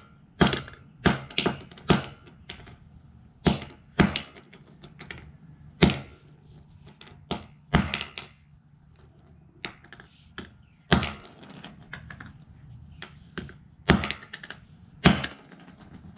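Claw hammer striking a small leftover part of a Bluetooth speaker against a concrete floor: about a dozen and a half sharp knocks at uneven intervals, some in quick pairs, with pauses between.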